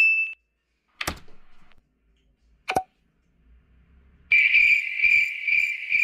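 A bright electronic 'ding' chime rings and fades out at the start, followed by two brief separate hits about one and three seconds in. From about four seconds in, a cricket-chirping sound effect trills steadily in even pulses, the meme cue for an awkward silence.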